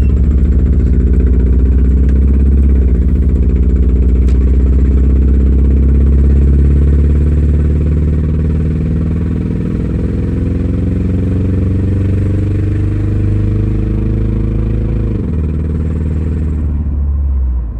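Subaru Legacy's boxer engine with no muffler, pulling under load as the car accelerates. Its pitch climbs slowly, dips briefly about three seconds in, then rises again and drops sharply near the end as the revs fall.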